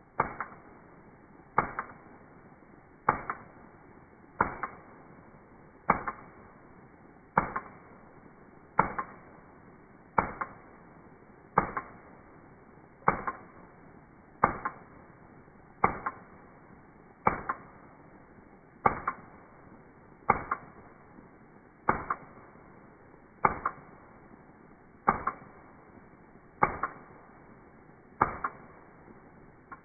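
Colt AR-style .22 LR rifle firing shot after shot in rapid semi-automatic fire, played back in slow motion: about twenty slowed, dull reports evenly spaced about a second and a half apart, each with a fading tail.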